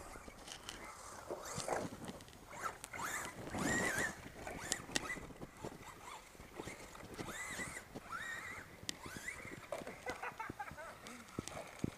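Radio-controlled trucks (Traxxas Rustler and Associated SC10B) driving on a dirt track: their motors whine up and down in pitch as they accelerate and back off, several times over, with scattered sharp clicks and ticks.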